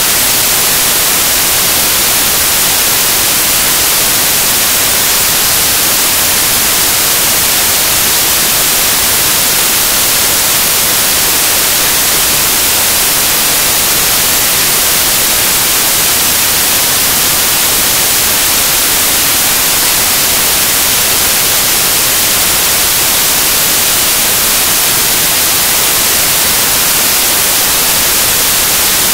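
Loud, steady static hiss, brighter toward the top and unchanging, with nothing else in it: the sound of a dead or faulty audio feed.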